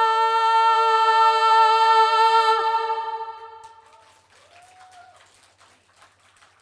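Sung final note held by two voices in harmony, one having slid up into place, steady and then dying away about three and a half seconds in. Afterwards only faint scattered ticks.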